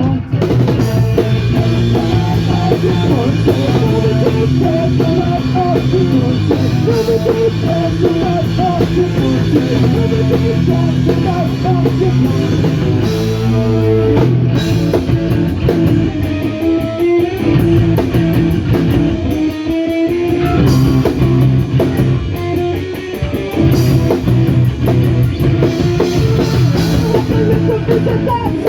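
Punk rock band playing live: electric guitars, bass and drum kit going at full volume without a break.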